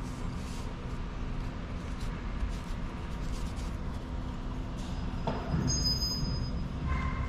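Steady low rumble and hum of the shop background, with faint clicks and scrapes of a metal plate and shaft being fitted by hand on a Hale fire-pump shift assembly. A brief thin high squeak about six seconds in.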